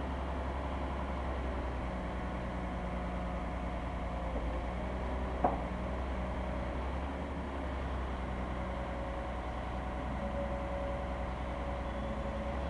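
Komatsu hydraulic excavator's diesel engine running steadily while the arm and bucket are worked, with tones that shift as the load changes. A single sharp clank about halfway through.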